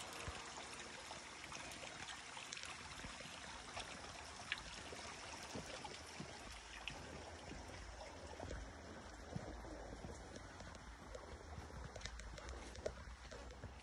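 A small stream running steadily, with scattered light footsteps and twig snaps on a dirt trail.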